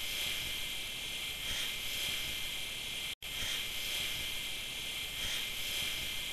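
Electric leg shaver running with a steady high-pitched buzz, which cuts out for an instant about three seconds in.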